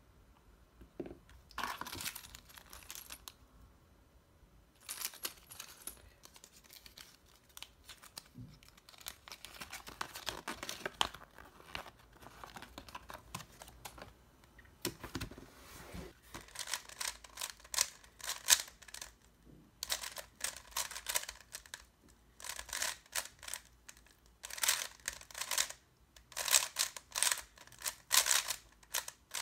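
Paper and packaging rustling and crinkling as they are handled, then quick runs of clicking and clacking from a Sengso Yufeng 3x3 speedcube being turned during a solve, the clicks coming in dense bursts over the second half.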